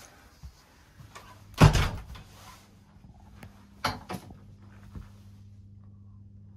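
A door in a sleeping-car compartment shutting with one heavy knock, then two lighter clicks about two seconds later, over a low steady hum.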